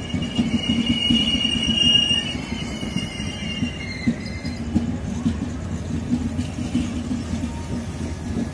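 Passenger train coaches rolling past on departure with a steady rumble of wheels on rail, and a high-pitched wheel squeal that fades out about halfway through.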